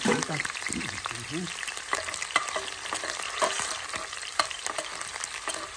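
Half an onion frying in hot oil, a steady sizzle with scattered sharp pops and crackles. The onion is being browned until slightly scorched to flavour the oil for frying the mole's chiles and seasonings.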